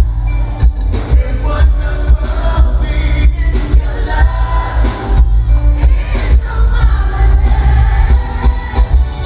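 Live R&B music played loud over a PA, with a male lead singer singing into a microphone over a band whose bass is heavy and booming.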